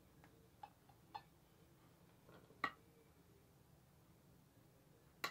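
A few faint clicks and clinks of tableware, a spoon against a dish, the loudest about halfway through and the last near the end with a short ring, over near silence.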